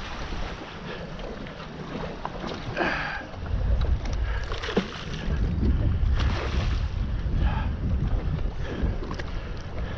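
Wind rumbling on the microphone over water splashing and slapping beside a small aluminium boat, where a hooked queenfish is thrashing at the surface near the hull. There are a few light knocks, and the wind rumble grows stronger about a third of the way in.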